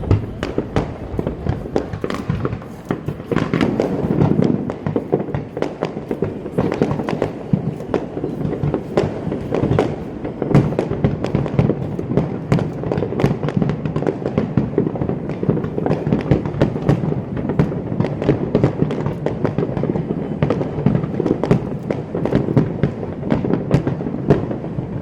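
Aerial fireworks display: a dense, continuous barrage of overlapping bangs and crackles with many sharp reports, over a steady low rumble.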